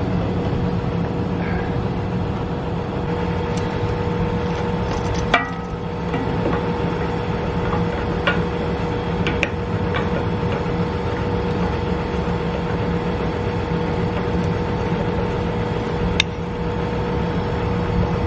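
Tractor engine idling with a steady hum. Over it come a few sharp metallic clicks and clanks as anhydrous hose couplers are fitted to the toolbar, the loudest about five seconds in and again near the end.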